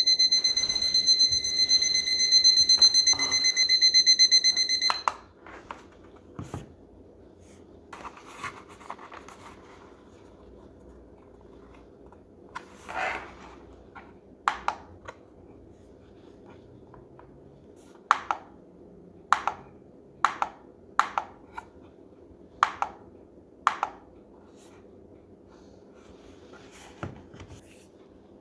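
La Crosse Technology alarm clock's alarm sounding with a loud, high-pitched electronic tone, cut off suddenly about five seconds in as snooze is pressed. After that come a dozen or so faint, short clicks from the clock's buttons being pressed, scattered over the next twenty seconds.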